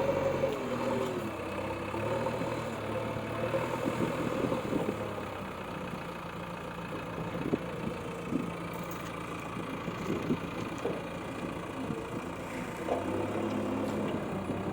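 Heavy machine's engine running steadily at a low, idle-like speed, with a few brief knocks.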